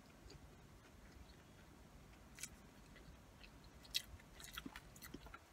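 Close-miked chewing of cheesy curly fries: soft wet mouth clicks, sparse for the first couple of seconds, then a run of sharp clicks in the second half, the loudest about four seconds in.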